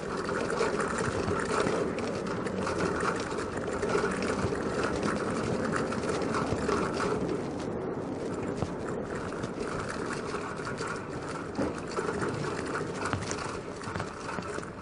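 Bike-share bicycle rolling over cobblestones and paving, its wheels and frame giving a continuous fast, irregular rattle.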